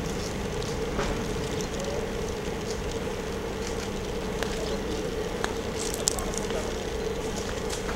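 Steady mechanical hum holding one constant tone over a low rumble, with a few faint scattered clicks.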